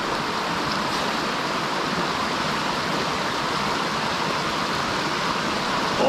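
Small mountain stream running over rocks and little cascades: a steady rush of water.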